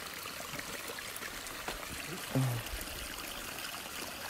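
Spring water trickling steadily at a clootie well. A short, low voice sound comes about halfway through.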